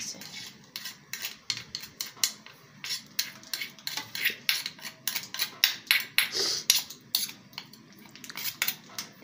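Large metal spoon clinking and scraping against a bowl as fried onions are pressed down to squeeze out their oil: a run of irregular clicks, about two or three a second.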